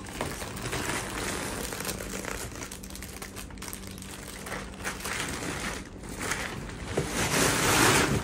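Woven plastic sack crinkling and rustling as it is pulled open and off a packed bag of car seat covers, growing louder near the end.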